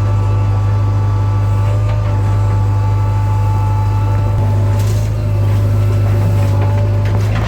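JCB backhoe loader's diesel engine running steadily, with a strong low drone and steady whining tones above it. A few brief knocks come about five seconds in and near the end.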